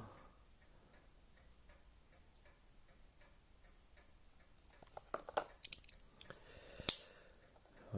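Quiet, then from about five seconds in a run of small clicks and snaps from a Victorinox Explorer Swiss Army knife's tools being folded and opened, the sharpest snap near the end.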